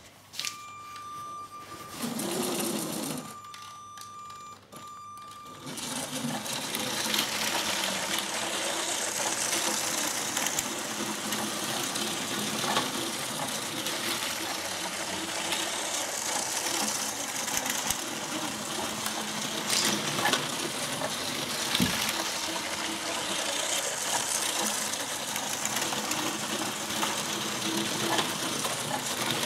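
LEGO train's small electric motor whirring, with its plastic wheels rattling steadily along plastic track, starting about six seconds in. Before that, a faint steady tone comes and goes a few times.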